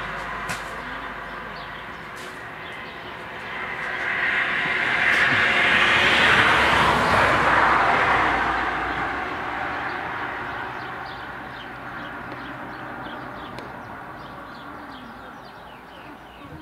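A passing vehicle, its noise swelling for several seconds to a peak about halfway through and then slowly fading. Birds chirp near the end.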